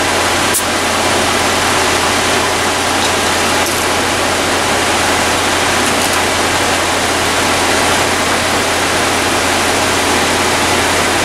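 Chevy Impala engine idling with the air conditioning running, a steady hum under an even rushing noise. A single light click about half a second in.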